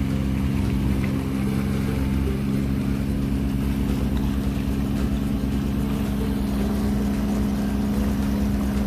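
Sailing catamaran's engine running steadily as the boat motors under way, a constant even drone with no change in speed.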